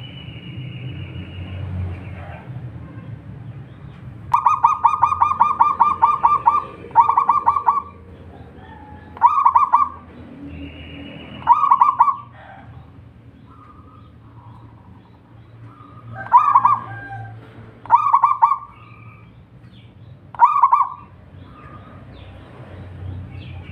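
Zebra dove (perkutut) cooing: a rapid run of staccato coos about four seconds in, then shorter single cooing phrases every couple of seconds. A thin, high, steady note sounds twice, at the start and midway, over a low background hum.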